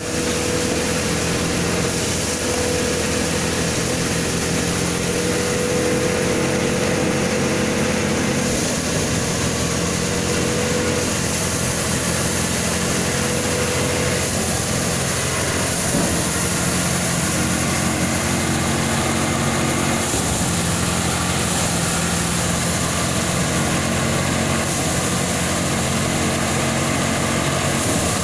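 Engine-driven paddy thresher running steadily while threshing paddy: a continuous machine drone with a hiss over it.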